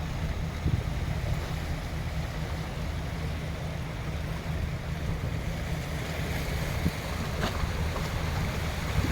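Sea waves washing steadily, with wind buffeting the microphone as a low rumble.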